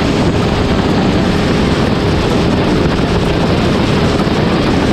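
Military combat boat speeding across open water: a loud, steady rush of engine noise, spray and wind, without a break, that cuts off abruptly at the end.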